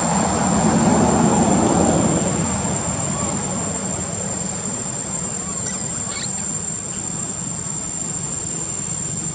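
Young long-tailed macaques giving a couple of brief high squeaks around six seconds in, over a steady background rumble that is louder in the first two seconds.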